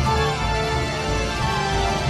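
Intro theme music: held notes over a steady low bass.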